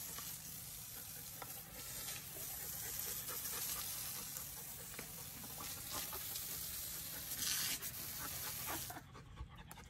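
Steady hiss of a garden hose nozzle's jet spraying onto wet concrete, with scattered light clicks. It briefly gets louder about seven and a half seconds in and drops away near the end.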